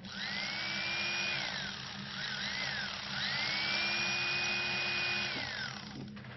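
Chainsaw revving. The engine rises to a high whine and holds for about a second, then drops. It gives two short blips and revs up again, holding for about two seconds before it winds down and cuts off near the end.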